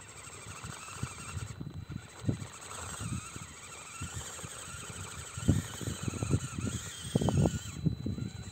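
Absima CR-18 Pro mini RC crawler's small electric motor and gears whining as it climbs rock, the pitch wavering with the throttle; the whine breaks off briefly about two seconds in and stops near the end. Dull low knocks sound throughout.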